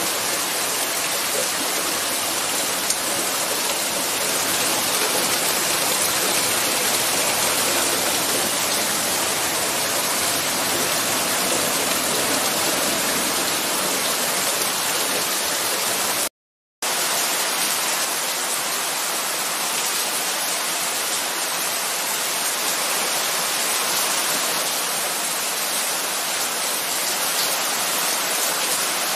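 Heavy rain pouring down, a steady dense hiss of falling and running water. Just past halfway it cuts out for an instant and resumes slightly thinner, with less low rumble.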